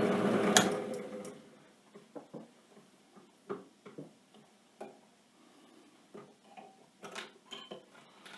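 A steady machine noise with a sharp click that dies away over the first second or so, then scattered light clicks and taps, as of small stone pieces and tools being handled at the drill press.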